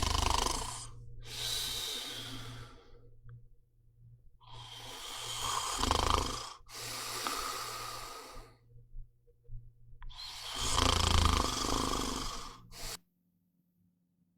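A person snoring heavily: three long rasping snoring breaths with a low rattle, each a breath in followed by a breath out, with short pauses between them.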